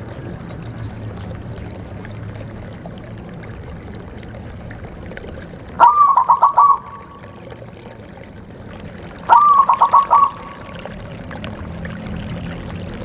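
Zebra dove (perkutut) cooing: two calls, each a short held note breaking into a quick run of staccato pulses, over a steady background hiss.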